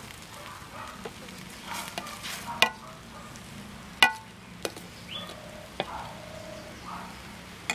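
Steel spoon stirring a giant egg omelette mixture in a wide steel plate, scraping and clinking against the metal. There are two sharp ringing clanks, about two and a half and four seconds in, over a faint sizzle of frying egg.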